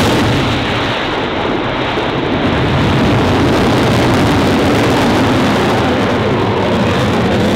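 Boeing F/A-18F Super Hornet's twin General Electric F414 turbofans roaring at full power with afterburners lit as the jet pulls up and climbs away. The high hiss fades within the first second, leaving a steady, deep roar.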